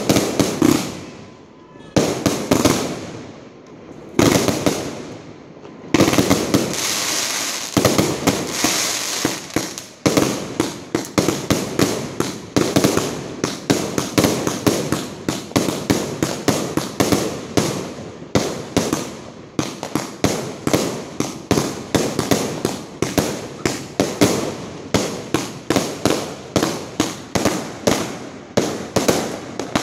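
A 250-shot fireworks cake firing: a few single bangs about two seconds apart, then from about six seconds in a rapid, unbroken volley of shots, about two a second.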